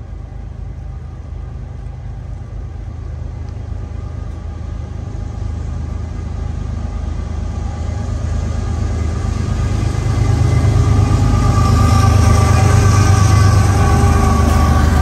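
Diesel locomotives of a Norfolk Southern freight train approaching, their low engine rumble growing steadily louder. Hiss from wheels and rail joins in over the last few seconds as the lead locomotive comes by.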